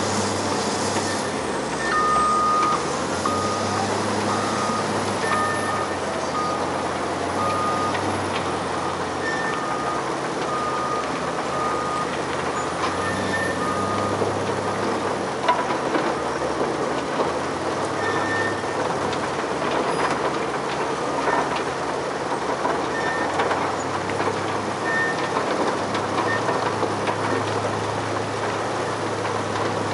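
Extec S-5 mobile soil screener and Caterpillar 950H wheel loader running steadily on diesel, with reversing alarms beeping. A lower, faster series of beeps runs from about two seconds in to about thirteen seconds, and a higher beep sounds every few seconds throughout.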